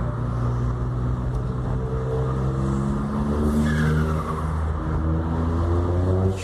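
Turbocharged VW Up TSI 1.0 three-cylinder engine accelerating, its revs climbing steadily. About three and a half seconds in there is a gear change with a short falling whistle, then the revs climb again, with another falling whistle near the end.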